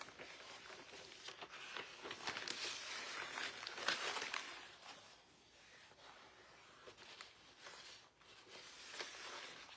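Wet newspaper dragged and skimmed across the water surface of a plastic marbling tub, rustling and crinkling, to clear the leftover paint from the size. It is louder for the first four seconds, then softer.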